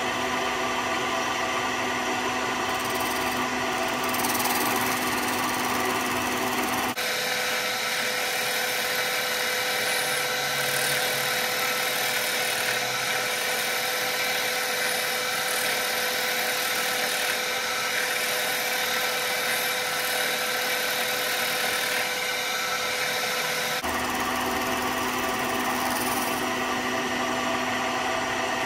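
Bridgeport vertical milling machine running, its end mill cutting away the back of a plastic shotgun stock. The steady machine hum carries several pitched tones and changes pitch abruptly twice, about 7 and 24 seconds in.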